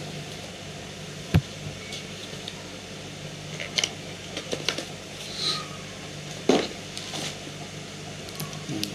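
Handling of earbud packaging: sharp clicks and taps of cardboard and plastic boxes with a little rustling, the loudest click about a second and a half in and another past the middle, over a steady low hum.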